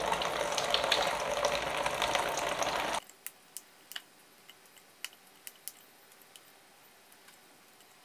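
Tap water running and rushing for about three seconds, then cutting off suddenly. After that, a few light clicks and ticks as curly red chillies are broken up and dropped into a glass chopper jar.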